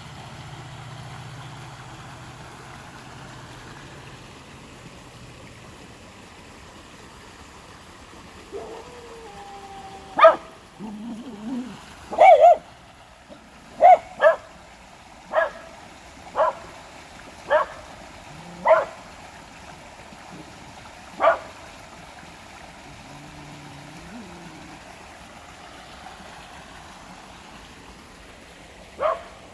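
A dog barking: about ten short, sharp barks spaced roughly a second apart, starting about a third of the way in, then one more bark near the end. Beneath them runs the steady rush of a small creek flowing over rock ledges.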